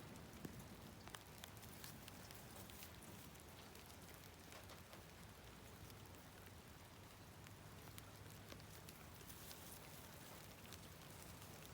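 Faint light rain: a steady soft hiss with scattered small drips.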